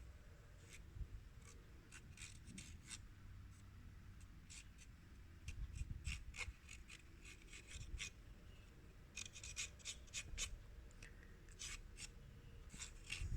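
Faint, scattered clicks and light rubbing of small plastic and metal parts of a CD player's disc mechanism being handled and fitted by hand.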